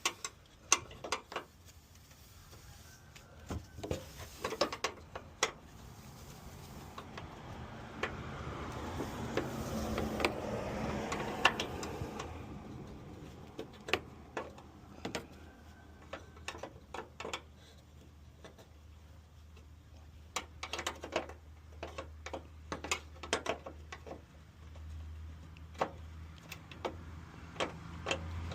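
A 10 mm wrench working a headlight mounting bolt: short runs of sharp metal clicks. A vehicle swells and fades by in the middle, and a low engine hum builds near the end.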